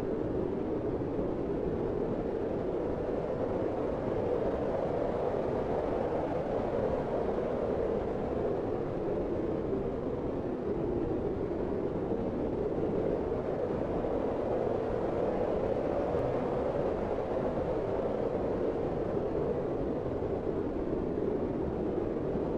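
Steady, smooth wind sound effect: an even, low-pitched rushing noise with no gusts or breaks, looped.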